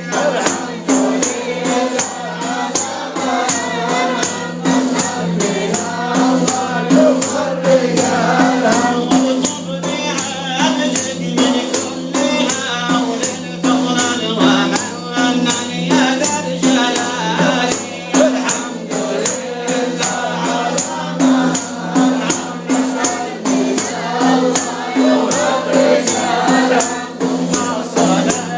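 Voices singing a Sufi devotional chant (inshad) in a wavering, melismatic line, over a steady beat of frame drums with jingles.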